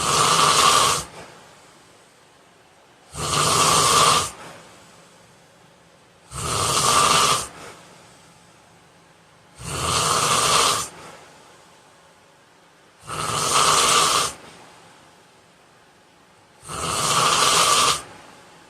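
A man snoring loudly in his sleep: six snores at a steady rhythm, about one every three and a half seconds, each lasting over a second, with quiet breaths in between.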